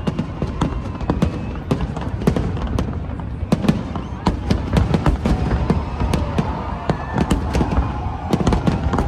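Fireworks display: dense, irregular bangs and crackles, several a second, over a continuous low rumble.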